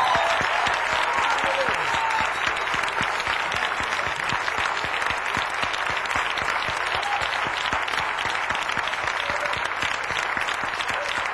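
Church congregation applauding: dense, steady clapping from many people, easing off slightly toward the end.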